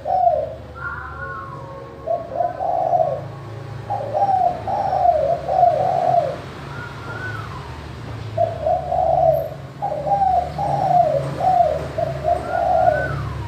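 Spotted dove (tekukur) giving its clear cooing song in phrases of rolling coos: one short phrase, then a run of about three coos, then a longer run of about five near the end. A thin whistle that rises and falls sounds three times over a steady low hum.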